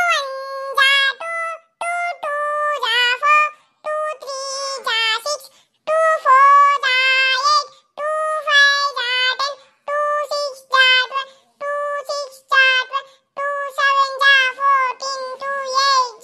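A very high, child-like voice singing a tune alone, in short phrases of held notes with brief gaps between them.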